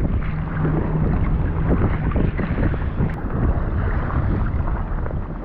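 Wind buffeting the microphone over choppy water, with waves and paddle strokes splashing against a kayak. A low steady hum runs through the first couple of seconds.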